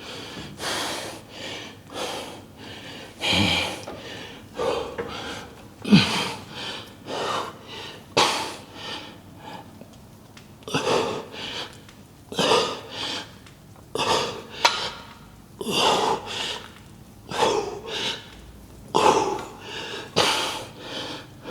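A man breathing hard and forcefully through a set of front squats, sharp exhalations about every second or so, with a strained grunt now and then, the loudest about six seconds in.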